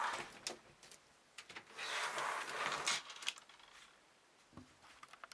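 Computer case being turned around and handled on a tabletop: a scraping slide lasting about a second, about two seconds in, with scattered knocks and clicks.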